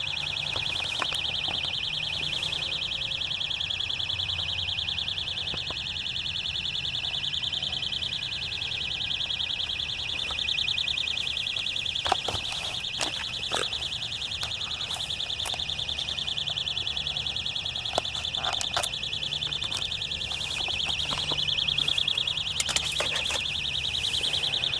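A steady, high-pitched buzz of very rapid pulses, like a cricket times 100, which the listener traces to an electrical box. A few short knocks come near the middle.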